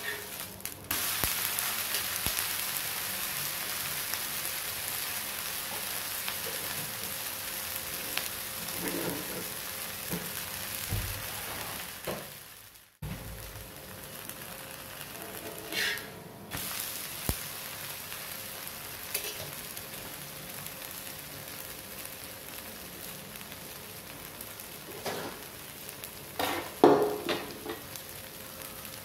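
Wheat dosa sizzling on a hot tawa, a steady frying hiss that grows louder about a second in, once the dosa has been flipped. A few knocks and scrapes near the end, a spatula against the tawa.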